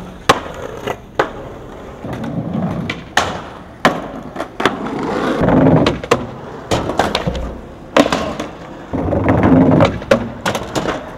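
Skateboard wheels rolling, broken by repeated sharp clacks of the tail popping, the board striking ledges and wheels landing. Stretches of rumble where the board slides along wooden ledges.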